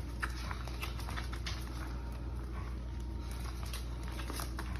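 Scattered light clicks and taps, irregular and unevenly spaced, over a steady low hum.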